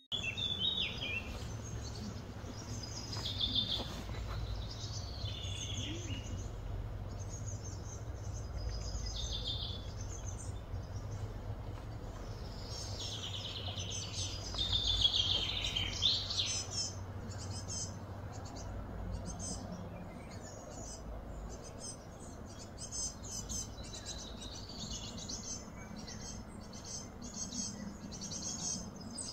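Small birds chirping and trilling in short, repeated phrases, busiest about halfway through, over a steady low background rumble.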